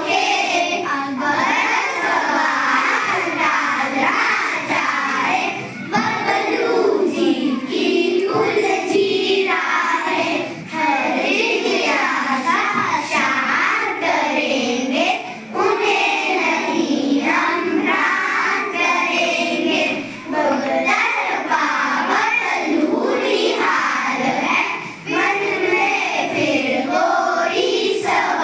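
Children's voices singing a Hindi poem together, line after line, with a short break about every five seconds.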